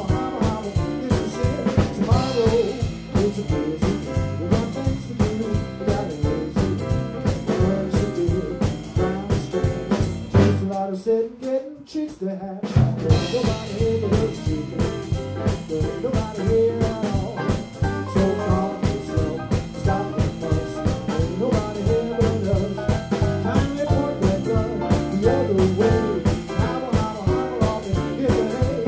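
Live jump-blues band playing: saxophone, electric guitar, Hammond organ keyboard, bass and drum kit in a swinging, steady rhythm. About ten and a half seconds in, the band stops for roughly two seconds, leaving a single line, then comes back in.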